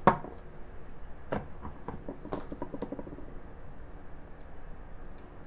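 Hand work on a wooden workbench: a sharp knock, then lighter taps about a second and two seconds later, followed by a quick run of small clicks. These are a glue bottle and tweezers being handled and set down on the bench.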